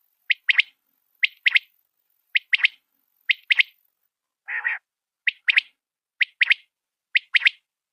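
White quail (batair) calling its three-note call, a short note and then a quick pair, repeated about once a second, seven times. About halfway through it gives one lower, rougher call instead.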